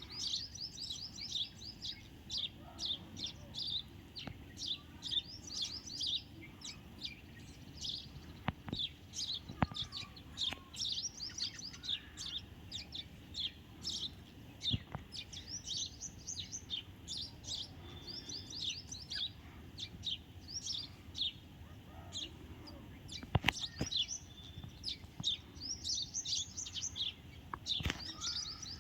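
House sparrows chirping constantly, a busy stream of short, high chirps, with a few sharp clicks among them.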